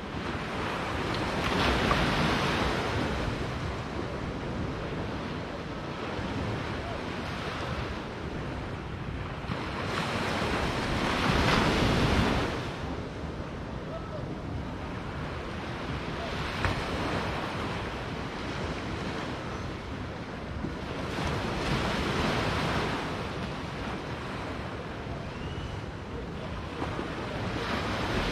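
Small sea waves breaking and washing up a sandy beach. The sound swells and fades every few seconds and is loudest about eleven seconds in.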